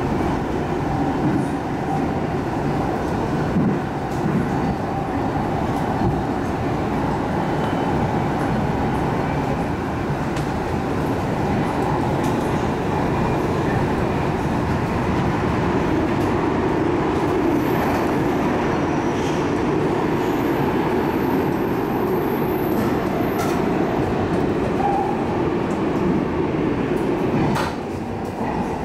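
A MARTA rapid-transit train heard from inside the car while running between stations: a steady rumble of the wheels on the rails and the running noise of the car. A faint high whine comes in for a few seconds around the middle, and the sound dips briefly with a click near the end.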